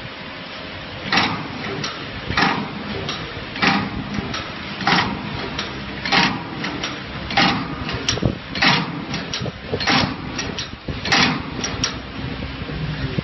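Tray-type cookie depositing machine running, with a strong mechanical stroke about every second and a quarter as the depositing head cycles, and lighter ticks between the strokes.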